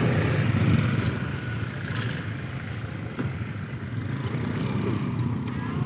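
A motorcycle engine running close by, a steady low rumble that eases slightly after about a second.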